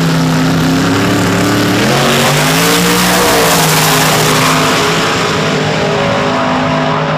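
Two drag-racing pickups, one a nitrous small-block Chevy S-10, running at high revs on the start line and then launching at full throttle down the strip. The engine pitch climbs about two seconds in, drops back a little after three seconds and holds steady as the trucks pull away.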